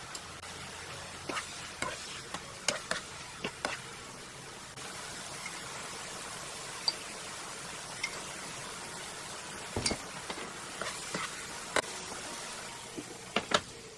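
Shrimp, cherry tomatoes and garlic sizzling in butter in a nonstick frying pan, a steady hiss. Sharp clinks against the pan come in clusters, about one to four seconds in, again around ten to twelve seconds, and near the end.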